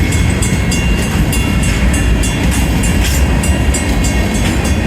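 Grain train of Union Pacific covered hopper cars rolling slowly past, a loud, steady rumble of wheels on rail. A grade-crossing bell rings over it in quick, even strokes.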